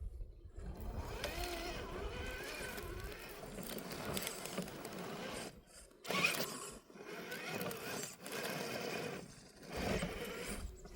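Axial SCX10 III RC crawler's electric motor and gears whining as it crawls over rocks. The whine rises and falls in pitch with the throttle and cuts out briefly a few times.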